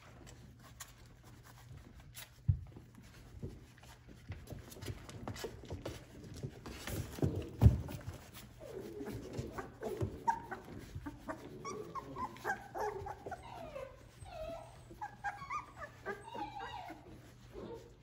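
Three-week-old Australian Labradoodle puppies whining and whimpering in many short, high, wavering cries through the second half. Before that, scuffling and a few thumps, the loudest just before the cries begin.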